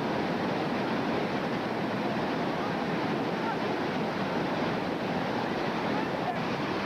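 Whitewater rapids rushing at a steady, even level.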